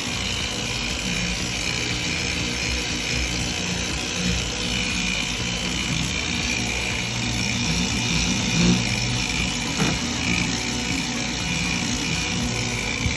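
A handheld electric power tool running steadily on boat gel coat: a constant motor hum with a steady high whine.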